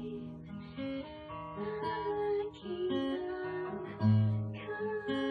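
Music with acoustic guitar playing, with a strong low note about four seconds in.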